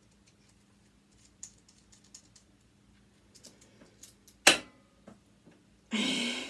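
Light scattered clicks and taps of a screwdriver working a screw loose, with one sharp click about four and a half seconds in and a short hissing burst near the end.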